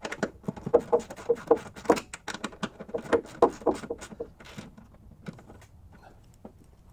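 Ratchet wrench clicking in quick runs as a nut is tightened on a ground wire connection, the clicks thinning out after about four and a half seconds.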